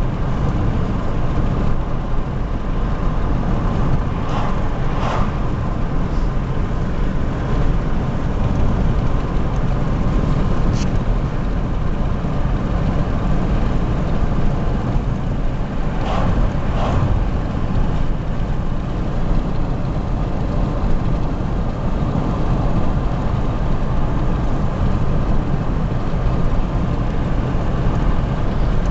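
Steady low rumble of road and engine noise from a car being driven, with two short higher-pitched sounds about four seconds in and again at about sixteen seconds.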